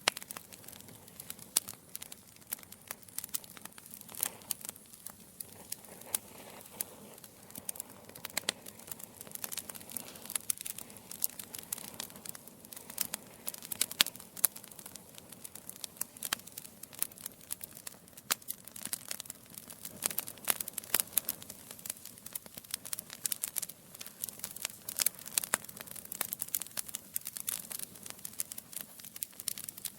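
Wood logs burning in a fireplace, crackling steadily with frequent irregular sharp snaps and pops over a soft hiss.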